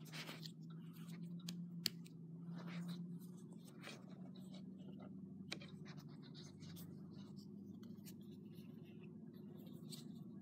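Faint scratching, rustling and clicking from a boxed Funko figure's packaging being handled and opened, with a sharp click about two seconds in and another about halfway through, over a low steady hum.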